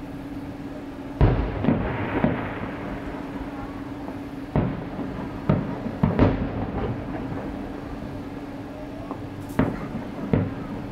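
Aerial fireworks shells bursting: about eight booms in three groups, near the start, in the middle and near the end, with crackling after the first group. A steady low hum runs underneath.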